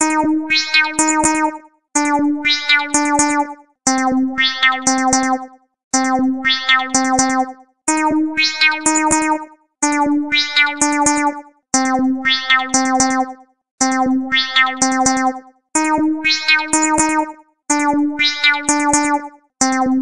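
Phone ringtone: a short synthesized melody of quick notes over a held low note, repeating about every two seconds with a brief break between repeats.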